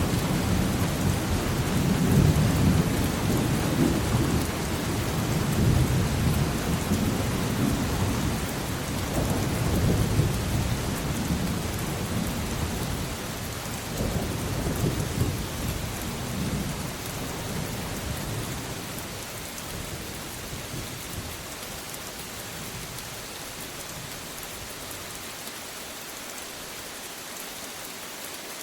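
Rain falling steadily with rolling thunder rumbling low through the first half; the thunder fades away after about twenty seconds, leaving only the steady hiss of rain.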